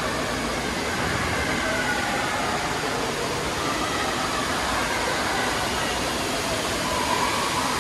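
Steady rushing background noise of an indoor water park hall, with water running and ventilation blowing under a high roof. Faint, distant voices drift through it.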